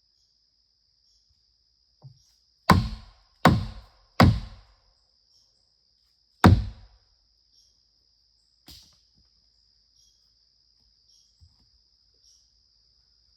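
Heavy blows striking wood: three in quick succession about three-quarters of a second apart, a fourth about two seconds later, then a lighter knock. A steady high chirping of crickets runs underneath.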